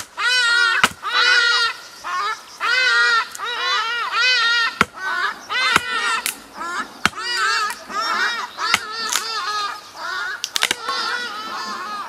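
A rapid run of short animal calls, each rising and falling in pitch, some overlapping, with sharp knocks scattered among them.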